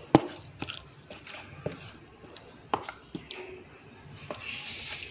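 Plastic spoon knocking and scraping against a plastic tub while it stirs through cooked red kidney beans: a series of sharp clicks with soft squelches, the first click the loudest. A hissing rustle starts near the end.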